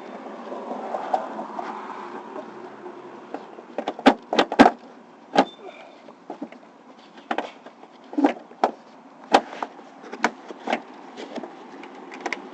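A run of sharp, irregular clicks and knocks as the seat-belt hardware and plastic trim panels of the car's rear side interior are handled and fitted, over a steady hum of passing traffic.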